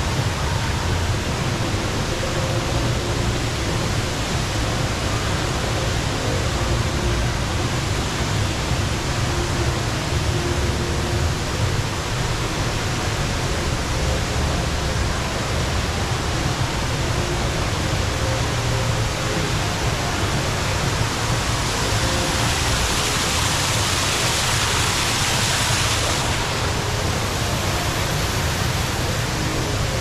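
Steady rush of a large indoor waterfall, Jewel Changi's Rain Vortex, pouring down from the opening in the glass dome. The rushing grows brighter and hissier for a few seconds about two-thirds of the way through.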